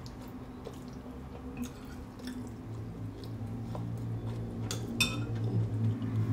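Close-up eating sounds: small wet mouth clicks and sips while eating a spoonful of fish soup with rice. About five seconds in, a metal spoon clinks once on the ceramic plate. A steady low hum runs underneath.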